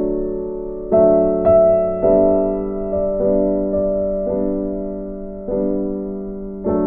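Background music: a slow, gentle piano piece, chords struck roughly once a second and left to ring and fade.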